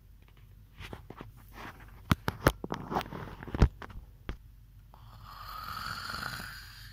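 Handling noise: a string of sharp clicks and knocks, then, about five seconds in, a scraping rush that swells and fades as a Lego brick is slid across the wooden floor.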